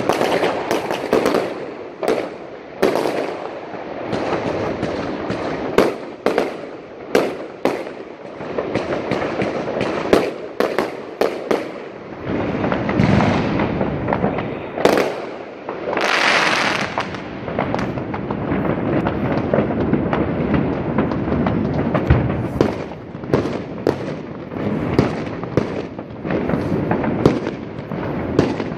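Fireworks going off all round: many sharp bangs and cracks in quick succession, some of them loud, over a continuous crackling hiss. About sixteen seconds in there is a longer hissing rush.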